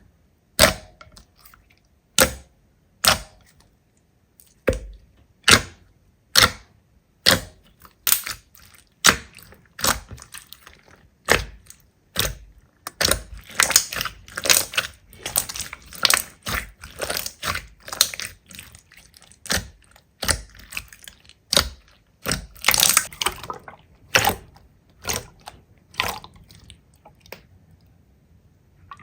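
Slime being squeezed and pressed, giving sharp pops and clicks, spaced out at first and coming several a second from about ten seconds in.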